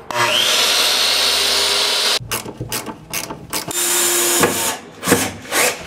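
Installation tools at work: a motor-driven tool spins up with a rising whine and runs for about two seconds, then stops suddenly. A string of clicks and knocks follows, then a second, shorter run of tool noise near the end.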